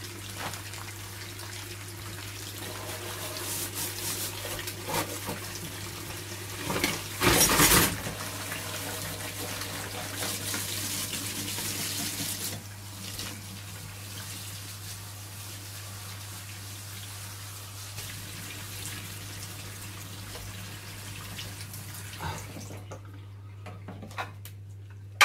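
Kitchen tap running into a sink, with a short loud splash or clatter about seven seconds in. The water gets quieter after about twelve seconds and stops near the end.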